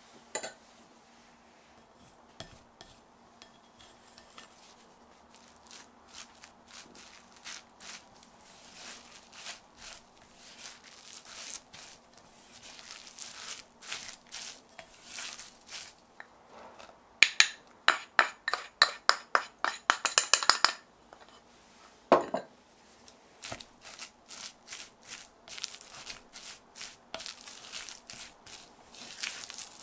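Silicone spatula stirring and mashing grated sweet potato with potato starch in a glass bowl: soft, rhythmic scrapes and knocks against the glass. A little past the middle comes a louder run of quick knocks, about three or four a second, and then one single knock.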